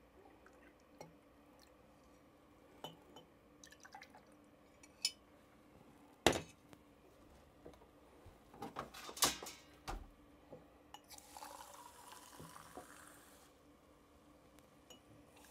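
Glassware and kitchen dishes clinking and tapping in scattered knocks, the sharpest about six seconds in and a quick cluster around nine seconds. Then about two seconds of liquid pouring into a glass.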